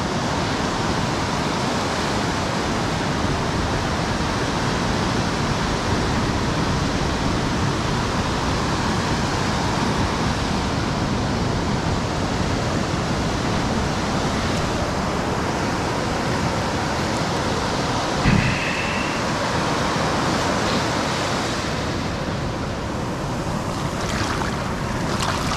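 Steady rushing noise with no clear events. A short high tone and a soft knock come about eighteen seconds in, and a few light clicks near the end.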